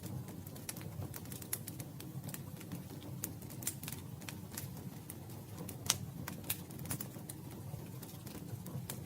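Campfire crackling: irregular sharp pops and snaps of burning wood over a low, steady rumble, with one louder pop about six seconds in.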